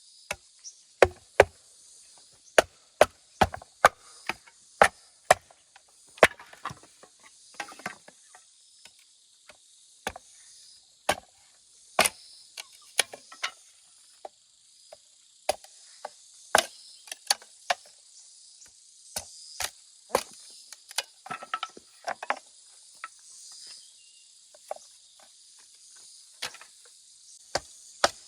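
Sharp chopping strikes from a hand tool, one or two a second with short pauses, over steady high-pitched chirring of insects.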